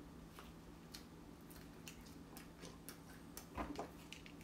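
Faint mouth sounds of someone chewing a bite of French toast pizza: scattered soft clicks over a steady low hum, with a couple of slightly louder knocks about three and a half seconds in.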